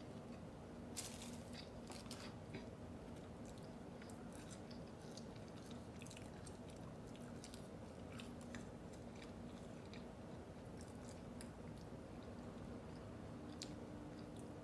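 A person chewing and biting Chick-fil-A food close to the microphone: quiet wet mouth clicks and small crunches scattered throughout. Under them runs a faint steady low hum.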